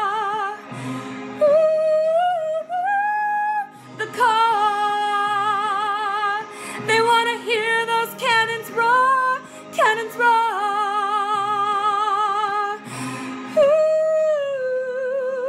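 A woman singing long held notes with heavy vibrato and quick vocal runs, belting over steady backing music.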